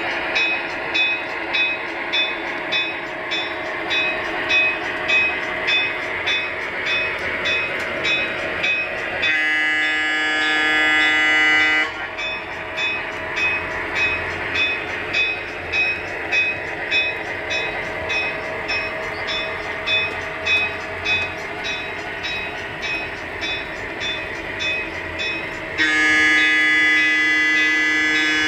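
Onboard sound system of an HO scale MTH Milwaukee Road Little Joe electric locomotive running, with a rhythmic clicking about twice a second. Its horn sounds twice: one long blast about nine seconds in, lasting under three seconds, and another starting near the end.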